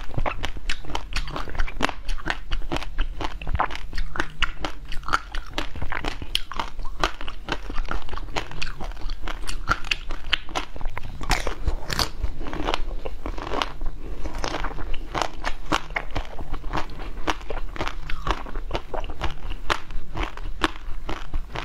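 Close-up biting and chewing of a frozen red bar: a steady run of many small, crisp crunches and cracks.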